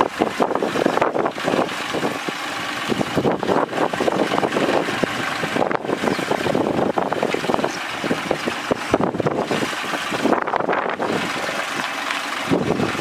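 Diesel farm tractor engine working under load, pulling a trailer of stone blocks up a rough dirt track, with wind buffeting the microphone.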